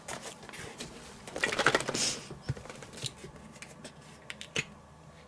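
A plastic ketchup squeeze bottle being handled and squeezed upside down over a plastic mixing bowl: small clicks and taps, with a short rush of hissing, sputtering air about two seconds in as the nearly empty bottle gives little ketchup.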